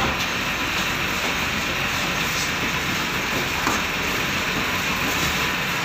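Passenger boat's engine running steadily, a constant noisy drone heard from inside the open cabin.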